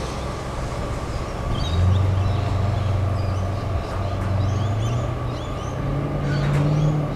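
Low engine drone that sets in about two seconds in and slowly rises in pitch, with birds chirping over it.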